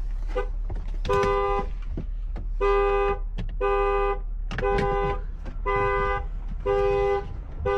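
The unlocked 2016 Chevy Suburban's two-note horn honking over and over in its alarm pattern, about one short blast a second, starting about a second in: the anti-theft alarm set off by the lockout opening.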